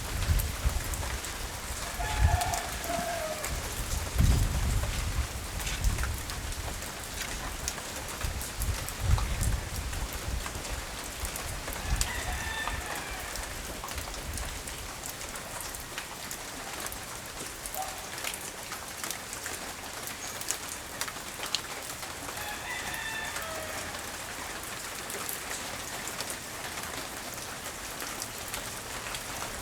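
Steady rain falling, with low rumbles of wind gusting on the microphone through the first ten seconds or so. A rooster crows three times, about ten seconds apart.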